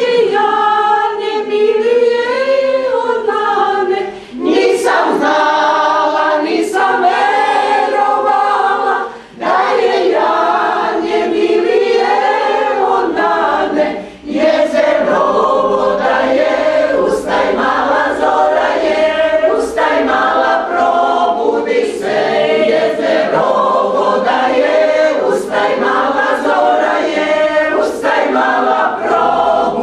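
A small amateur choir of mostly women's voices singing a cappella in parts, in held phrases with brief breaks for breath at about 4, 9 and 14 seconds.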